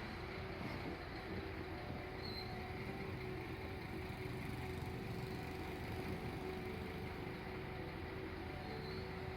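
Concrete pump truck and cement mixer truck machinery running steadily: a constant engine drone with a steady hum through it.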